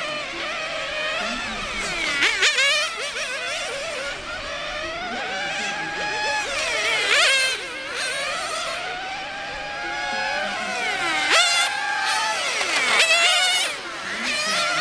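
Several 1/10 scale nitro RC touring cars' small two-stroke glow engines running at high revs, overlapping, their pitch rising and falling as they accelerate, brake and sweep past, with about four sharp pass-bys.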